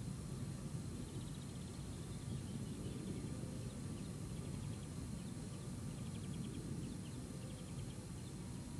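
Outdoor shoreline ambience: a steady low rumble, with faint rapid high trills coming in several short bouts.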